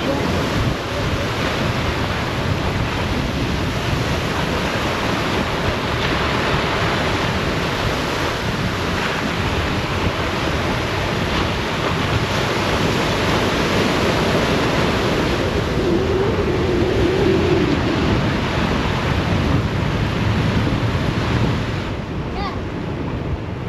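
Small ocean waves breaking and washing up a sand beach, with steady wind buffeting the microphone.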